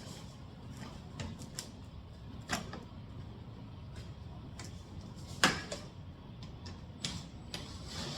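Scattered light clicks and knocks of parts and tools being handled, with one sharper knock about five and a half seconds in.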